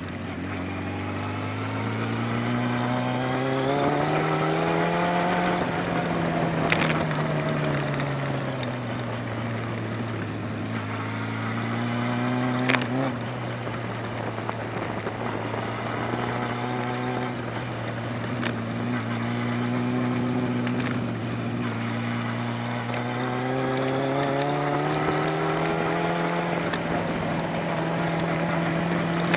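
Motorcycle engine running through tight low-speed turns, its revs climbing in the first few seconds, dropping back, holding lower, then climbing again near the end. A few sharp clicks sound over it.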